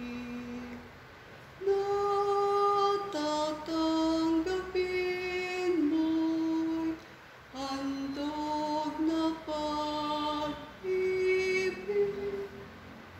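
A woman's voice singing a slow church hymn in long phrases of held notes, with short pauses between phrases. The singing stops just before the end.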